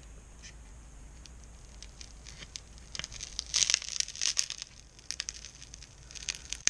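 Two pieces of underlayment board bonded with vinyl seam sealer being pulled apart by hand: the cured sealer crackles and tears as it lets go, ripping off the board's top layer. Scattered crackles start about two seconds in, thicken in the middle and end in a sharp crack as the pieces come apart.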